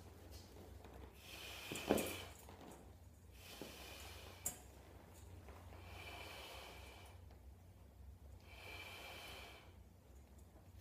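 A person breathing hard while straining on a hand conduit bender, three long heavy breaths a few seconds apart. A sharp click sounds about two seconds in, the loudest moment, with a smaller one a couple of seconds later.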